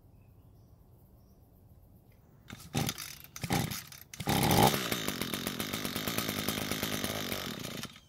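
Echo two-stroke string trimmer engine being pull-started after priming. A couple of pulls on the starter rope, then it catches about four seconds in and runs steadily, sounding healthy, before stopping on its own near the end.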